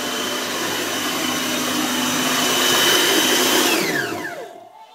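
Moulinex food processor running at full speed, chopping vegetables with a steady motor whine. It is switched off about four seconds in, and its pitch falls as the motor spins down to a stop.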